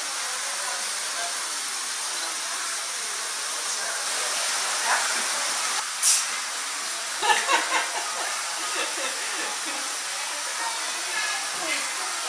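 Steady hiss with faint, indistinct voices in the background, and one sharp click about six seconds in.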